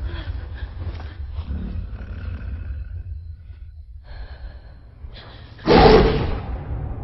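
Movie-trailer sound design: a low rumbling drone with faint breathy textures, then a sudden loud monster roar about five and a half seconds in that fades within a second.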